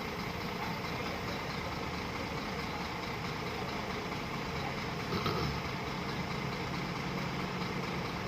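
Heavy diesel engine running steadily at low revs, with a brief slight rise about five seconds in.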